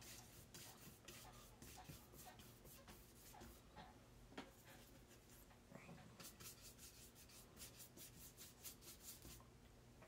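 Faint scratchy strokes of a watercolor paintbrush on paper, in two runs of quick strokes about four a second, with a short pause between them.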